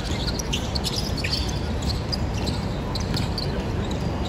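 Basketball game on an indoor court: scattered short sneaker squeaks and ball bounces over a steady low hum of hall noise.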